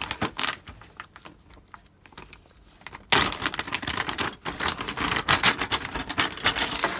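Plastic bag packaging being opened and handled, crinkling, with hard plastic model sprues clicking and rattling against each other. A few clicks come in the first second, then a dense run of crinkling and clicking starts about three seconds in.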